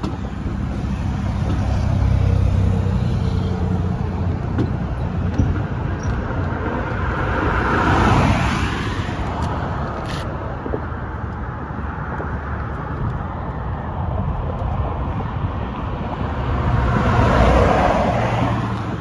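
Road traffic: a steady low rumble with two vehicles swelling past, one about eight seconds in and another near the end.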